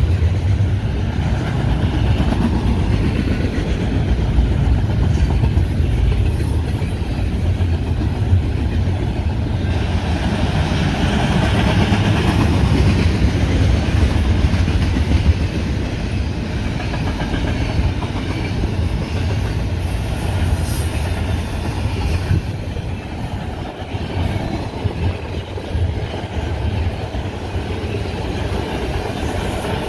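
Double-stack intermodal well cars of a freight train rolling past: steel wheels running steadily on the rails, a little louder for a few seconds around the middle.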